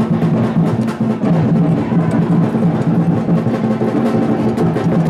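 Music with drums: rapid drum hits over a low repeating note.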